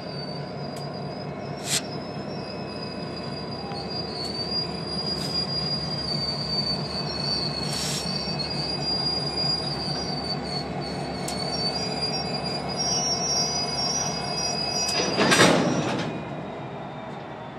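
Freight cars rolling slowly on a switching move, their steel wheels squealing against the rails in a steady high tone, over a low rumble with scattered sharp clicks. Near the end a louder harsh burst about a second long rises over the squeal.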